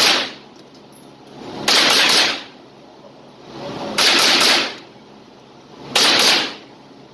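Semi-automatic .22 LR Thompson/Center TCR22 rifle fired in triple taps: four quick strings of rapid shots, each string about half a second long, about two seconds apart, each followed by a short echo.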